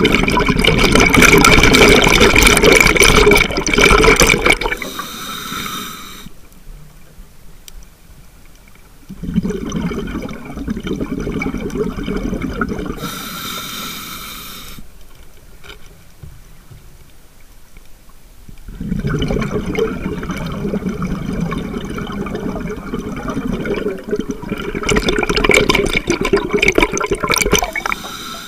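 Scuba diver breathing through a regulator, heard close up through a video mask: three long bursts of exhaled bubbles gurgling past, two of them followed by a short hiss of inhalation, with quieter pauses between breaths.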